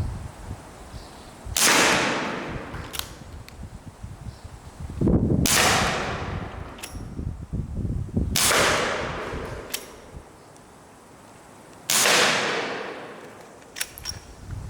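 Umarex Smith & Wesson M29 CO2 airgun revolver firing four shots, about three and a half seconds apart. Each shot is a sharp crack with a tail fading over a second or so, and light clicks fall between the shots.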